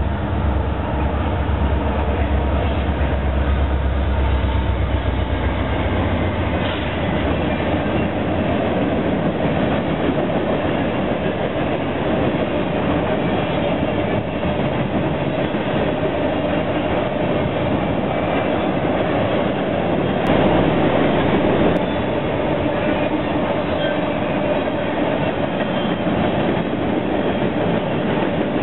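Diesel freight locomotives pass close by, their engines' deep rumble dropping away about six seconds in. Then a long string of empty ballast cars rolls past with a steady clatter of steel wheels over the rails and the girder bridge.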